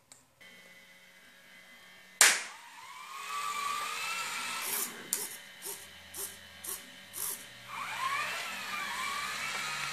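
A sharp hand clap about two seconds in, then the small electric drive motors of a clap-activated floor-mopping robot whining, their pitch wavering up and down. A run of short ticks comes in the middle, and the whine comes back near the end.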